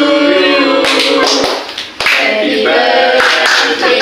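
A small group of people singing a birthday song together, unaccompanied, with a few hand claps.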